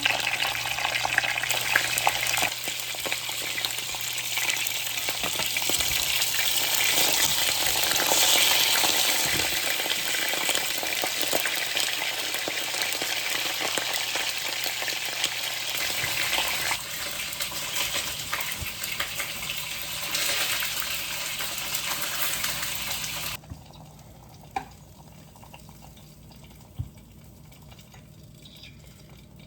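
Food frying and sizzling in a pan while being stirred, a steady crackling hiss. About 23 seconds in it cuts off abruptly to a much quieter background with a few light knocks.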